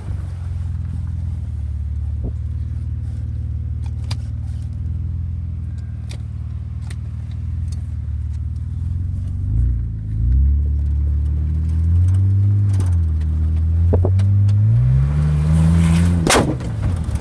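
BMW demolition-derby car's engine idling steadily, then revved several times, each rev higher, the last climbing to the highest pitch near the end. A loud sharp crack comes just after the last rev peaks, with a few light clicks earlier on.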